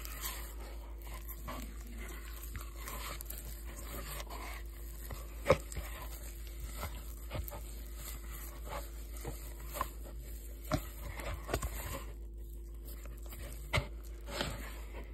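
A hand kneading and squishing a lump of sticky dough bait in a bowl, scraping it against the bowl's side, with scattered sharp clicks; the loudest click comes about five and a half seconds in.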